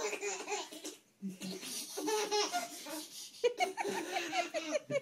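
Baby laughing hard in repeated bursts, with a short pause about a second in, tickled by a cat licking its toes.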